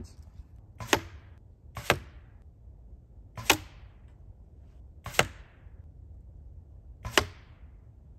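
Compound bow shots at a target 15 yards away: five sharp cracks over about seven seconds, each a bow's release with the arrow's smack into the target face close behind.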